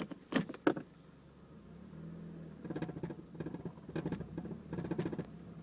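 2006 Honda Civic with a Megan Racing catback exhaust idling with a steady low hum, broken by three short rattling buzzes about a second apart in the second half: the unexplained noise that appeared after the exhaust was fitted. Two sharp clicks come just before the idle hum sets in.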